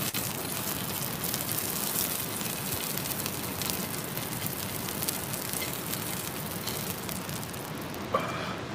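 Meat fat sizzling in a frying pan on a portable gas stove: a steady hiss with many small crackles and pops.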